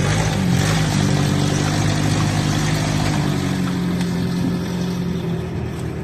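Small off-road vehicle's engine running steadily as it drives over rough ground, its pitch wavering a little.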